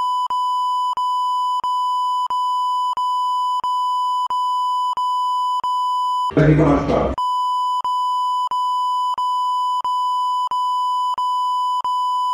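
Censor beep covering the report's audio: a steady high tone with short breaks about one and a half times a second. About six seconds in, a loud burst of noisy sound lasting under a second cuts through it.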